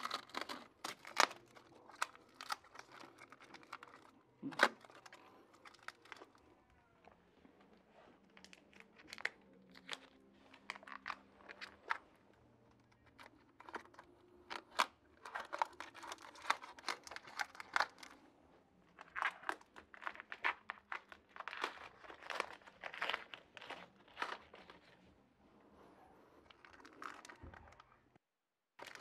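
Plastic wrap crinkling and tearing in irregular spurts as it is pulled and handled off a floor-standing loudspeaker.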